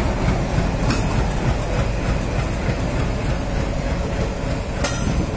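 Indian Railways WDM3A diesel locomotive running as it rolls slowly along the track, a steady heavy engine rumble. Short sharp hisses come about a second in and again near the end.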